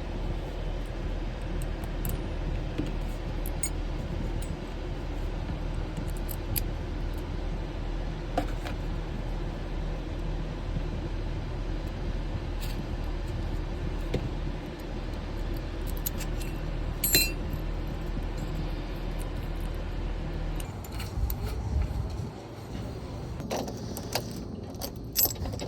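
Keys jangling and small metal clicks from a locksmith handling keys and lock parts while rekeying, over a steady low hum that stops about 21 seconds in.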